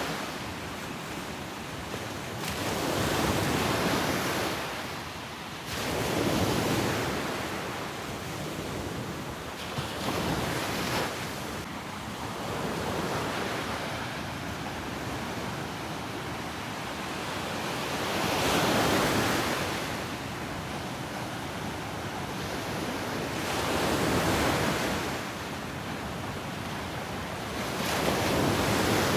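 Ocean surf on a beach: waves breaking and washing in, swelling and fading every four to six seconds, about seven times.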